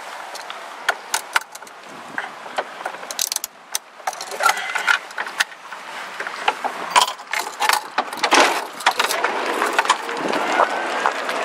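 Metal handcuffs ratcheting and clicking in irregular runs as a cuff is worked closed around a golf cart's steering wheel. Near the end the golf cart pulls away, with a faint rising whine.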